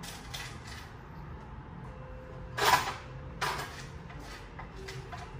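Steady low hum of dental-surgery equipment, with a few short hissing bursts; the loudest comes about two and a half seconds in, and a smaller one follows half a second later.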